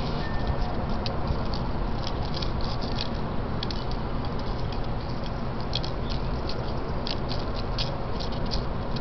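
Light, quick scratching and tapping of a plastic drinking straw and small claws on a concrete floor as a kitten bats the straw about, coming in irregular clusters over a steady background hiss.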